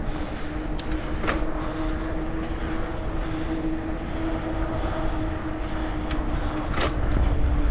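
A vehicle running along a trail: a steady motor hum over a low rumble and hiss, with a few sharp ticks about a second in and again near the end.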